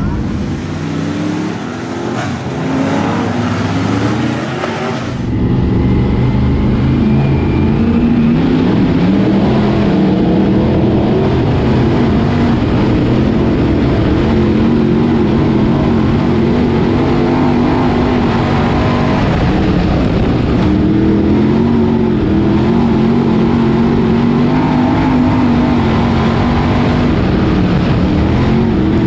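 Dirt Late Model Sportsman race car's 602 crate V8 heard from inside the cockpit at racing speed, its pitch rising and falling over and over with the throttle. The engine sound gets louder and fuller about five seconds in.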